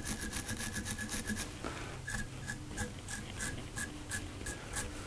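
Small wire brush scratched repeatedly across a fly's dubbing collar, teasing out the fibres. A quick run of strokes, then a steadier run at about three strokes a second.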